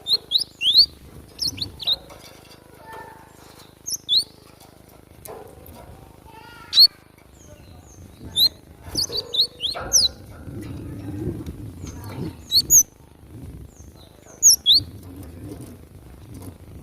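Cinereous tit (glatik batu) calling: short, sharp, high chirps that sweep in pitch, coming in quick pairs and clusters with gaps between.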